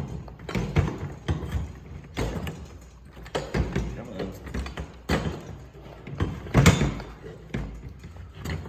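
Irregular knocks, clicks and short scrapes as the parts of a sticker-burr lawn roller are worked loose and pulled apart by hand, with the loudest knock about two-thirds of the way through.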